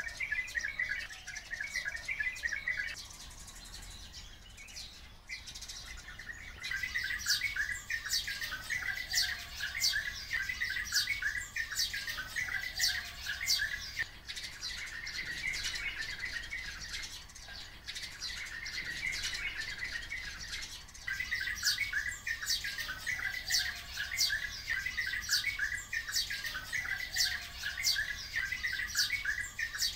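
A flock of oriental white-eyes and sparrows chirping and chattering without pause, with quick runs of sharp, high chips over the chatter. The calling thins out briefly a few seconds in and again around the middle, then picks up.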